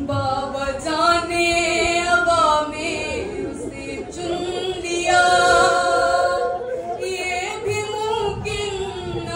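A woman chanting a nauha, a Shia mourning lament in Urdu, solo and unaccompanied into a microphone, in long, wavering held notes.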